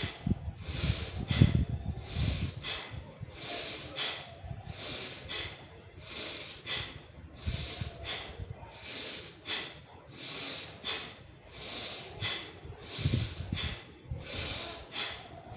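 A person doing a forceful nasal breathing exercise: quick, sharp breaths through the nose repeating in an even rhythm. Low rumbles come in about a second in and again near the end.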